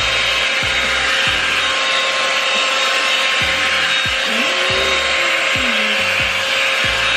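Revlon One-Step hair dryer brush running steadily on its cool setting: a loud, even rush of air with a faint motor whine.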